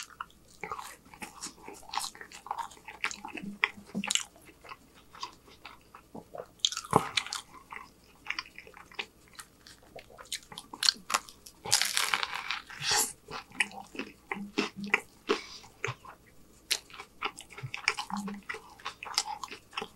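Close-miked eating: wet chewing with crisp crunching bites of french fries and a toasted chicken sandwich, with louder crunchy bites about seven and twelve seconds in.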